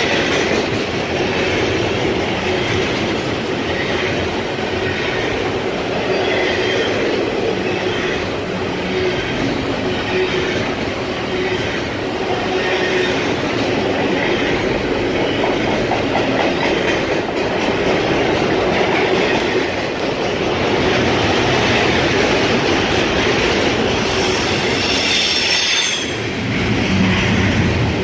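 Double-stack container freight train rolling past close by: steady noise of its well cars' steel wheels on the rails, with a faint steady tone under it throughout.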